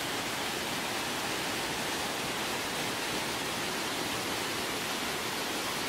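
Waterfall pouring: a steady, even rush of falling water with no breaks.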